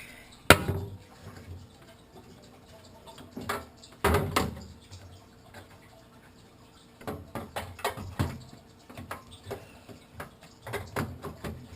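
Scattered clicks and knocks of plastic and metal as a graphics card is worked into a desktop computer's expansion slot and the slot's little gray latch is moved. A sharp click about half a second in is the loudest; a quicker run of small clicks follows in the last few seconds.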